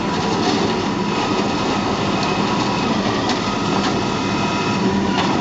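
Automated side-loader garbage truck's diesel engine running steadily, with a few short clanks.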